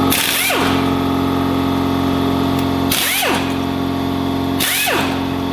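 A power drill running steadily, spinning out the bolts of a Nissan Patrol's automatic locking hub to take the hub off. Its pitch swoops down and back up three times: near the start, about three seconds in, and near the end.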